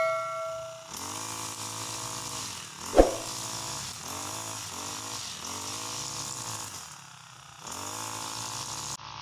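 Brush cutter engine revving up and down over and over as it cuts through tall grass. A sharp knock about three seconds in, and a chime ringing out during the first second.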